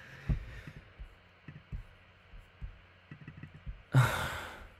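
A person's loud exasperated sigh near the end, a breathy exhale lasting under a second, after a few soft low thumps.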